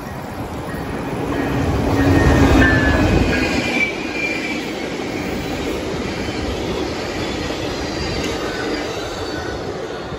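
Amtrak Wolverine passenger train passing close by: the locomotive's rumble builds to its loudest about two and a half seconds in, then the passenger cars roll past with a steady rumble of wheels on rail and thin high wheel squeals.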